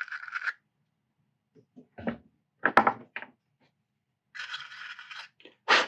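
Short scrapes and clicks of a small drill bit working by hand to clean out a screw hole in a resin model wagon, with a longer stretch of scraping near the end.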